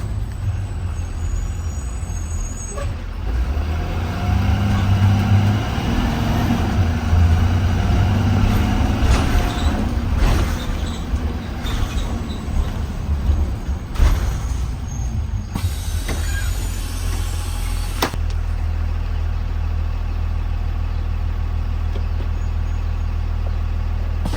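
Blue Bird Vision school bus engine running under load, its note rising and swelling for several seconds, then settling into a steady low idle. A couple of sharp clicks come partway through.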